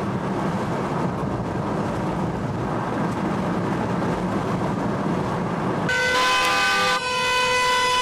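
Tyre and wind noise of a car driving along a highway, then car horns honking in long, steady held blasts from about six seconds in, with a short break about a second later. The horns are a wedding convoy's celebratory honking.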